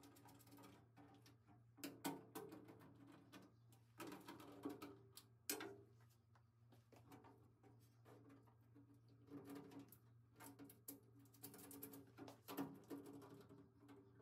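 Faint, irregular clicks and rustles of a power cord and its clamps being handled and pressed against a steel cabinet wall, over a faint steady low hum.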